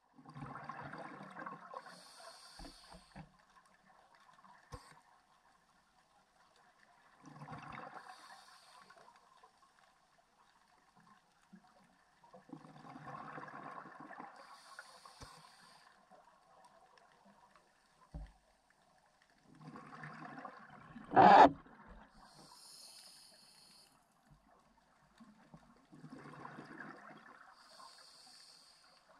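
Scuba diver breathing through a regulator underwater: five breaths roughly every six seconds, each a rush of air and bubbling with a higher hiss after it. A short, much louder burst comes a little past the middle.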